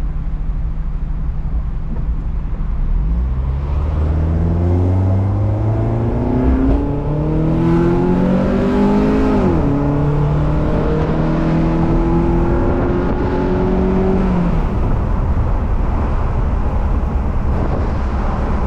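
Lowered Mazda Miata's four-cylinder engine and exhaust, heard from the cabin, pulling hard with the pitch climbing. About nine and a half seconds in, the pitch drops sharply at an upshift, then climbs again more slowly. Near the end the throttle comes off and the engine fades under road and wind noise.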